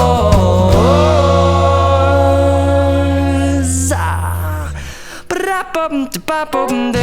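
Background music: a pop song ends on a long held sung note over a steady bass, fading out about five seconds in. Short, scattered sliding sounds and clicks follow.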